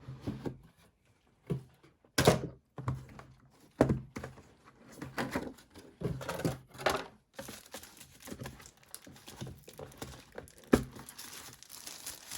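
Product packaging being handled and opened by hand: irregular knocks and thumps with rustling, the sharpest knocks about two seconds in and near the end.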